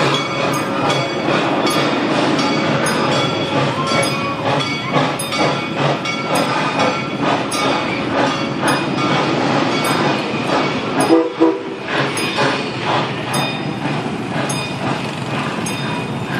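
Train cars rolling past close by, wheels clicking over rail joints about twice a second, with a steady tone running under the rumble.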